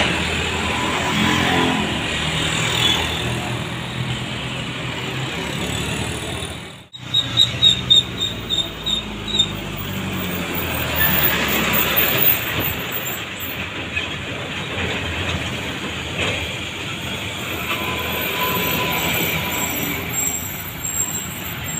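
Light diesel trucks driving past one after another on a rough road, their engines running. About a third of the way in there is a high pulsing squeal lasting about two seconds.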